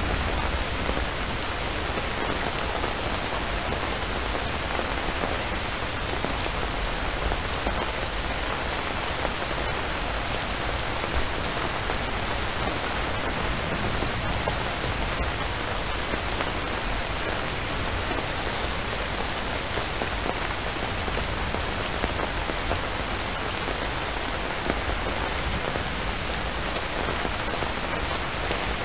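Steady rainfall: an even hiss of rain with scattered individual drops ticking now and then.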